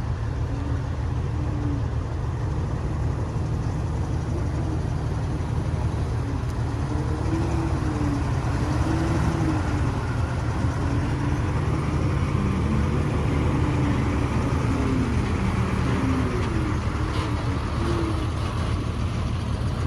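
Heavy diesel engine of construction machinery running steadily with a deep rumble, its pitch rising and falling now and then as the load or revs change.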